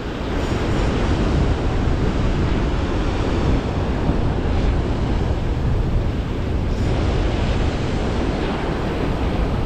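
Surf breaking against a rocky cliff, mixed with wind buffeting the microphone: a loud, steady rushing noise.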